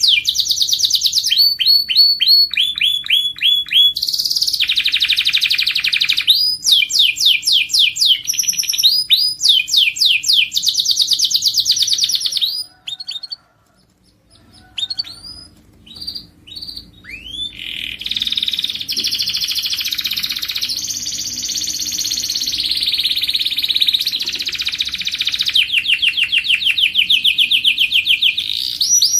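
Domestic canary singing in long, rapid trills and rolls that switch from phrase to phrase. About halfway through the song breaks off briefly to a few single chirps, then resumes as a continuous rolling song.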